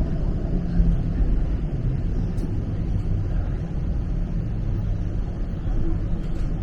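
TTC streetcar running along King Street, heard from inside the car: a steady low rumble of wheels on rails and motors.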